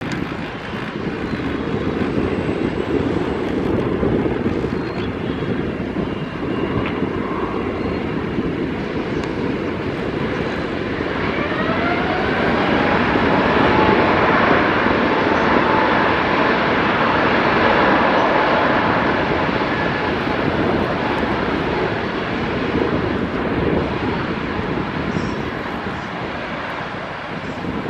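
Twin-engine jet airliner's engines running with a steady rushing noise. About eleven seconds in, a whine rises in pitch and then holds as the engines spool up to take-off thrust for the take-off roll, with the sound at its loudest a few seconds later.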